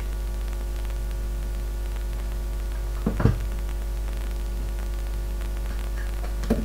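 Steady electrical hum with mains buzz, over which a cardboard timer box is handled and opened: a short cluster of knocks about three seconds in, the loudest, and another knock near the end.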